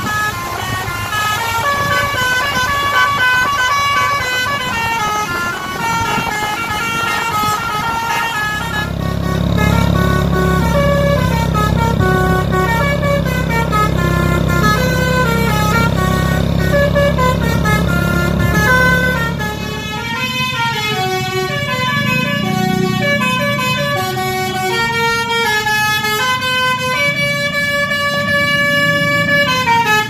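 Basuri multi-tone telolet air horn on a Wijaya Trans bus playing a fast tune of quick rising and falling notes. A deep engine rumble runs under it from about eight seconds in until about twenty seconds in.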